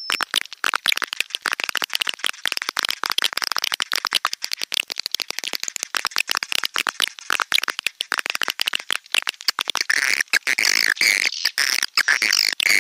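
Swiftlet calls played as a lure recording: dense, rapid twittering and clicking chatter, with louder chirps swelling about ten seconds in.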